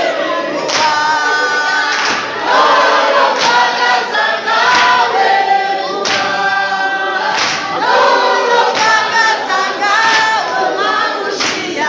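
A crowd of young men and women singing together in a group song, with hand-clapping.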